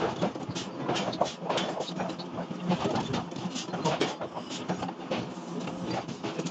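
Forging machinery at work: irregular metallic knocks and clanks, a few a second, over a steady machine hum.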